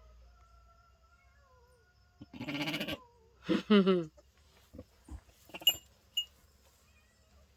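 Sheep bleating twice, loudly, about two and a half and three and a half seconds in, the second call falling in pitch. A few short clicks and two brief high pips follow.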